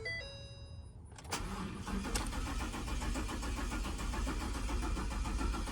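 Ford F-250's 6.2 L V8 cranking on the starter about a second in and going on cranking without firing: a long crank, no start, which the owner puts down to a fuel pump that is not priming. A brief steady tone sounds just before the cranking begins.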